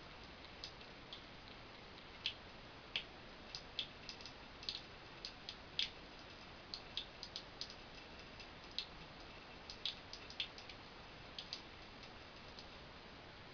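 Small drops of water dripping and splashing in quick, irregular ticks over a faint steady hiss.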